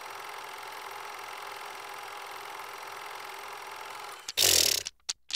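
Film projector running with a steady mechanical whir. About four seconds in there is a loud half-second burst of noise, then two short clicks, and the sound cuts off.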